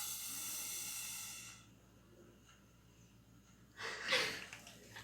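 Breath blown through a drinking straw into slime to blow a bubble: a steady airy hiss for about a second and a half, then a second, louder breathy burst about four seconds in.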